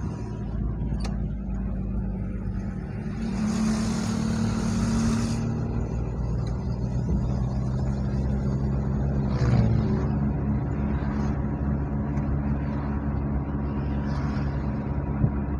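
Steady engine and road noise of a car driving in traffic, a low rumble with a constant engine hum. About three seconds in, a louder rush of noise lasts around two seconds. Just before ten seconds there is a brief falling sound.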